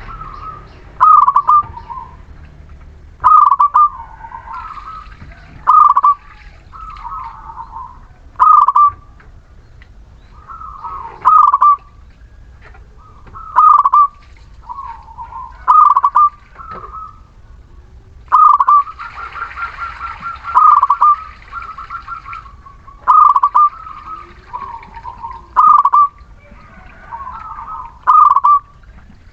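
Local Muria-strain zebra dove (perkutut) in full song: short, loud cooing phrases repeated about every two to three seconds, with a quick run of rapid notes around the middle.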